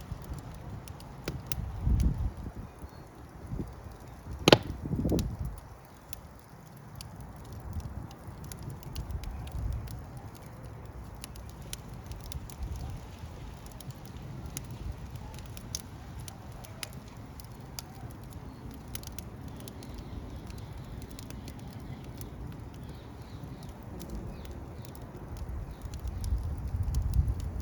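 Fire crackling, with irregular sharp pops and snaps and one loud pop about four and a half seconds in, over a low rumble that swells several times.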